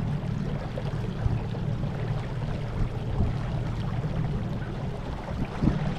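Small boat's electric trolling motor running steadily, a low hum under water noise as the boat moves upriver.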